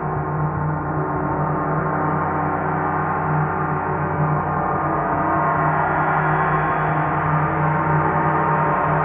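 A 30-inch (75 cm) TTE KongKlang Earth gong sounded by a flumie rubbed across its face. It gives a steady, sustained drone of many overtones over a strong low hum, swelling slightly towards the end.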